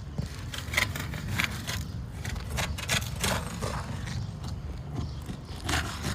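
Irregular scrapes and clicks on asphalt roof shingles, over a steady low rumble.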